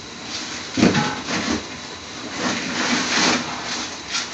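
Pot of saag (chopped spinach) cooking on a low gas flame, hissing steadily, with louder moments about a second in and around three seconds in.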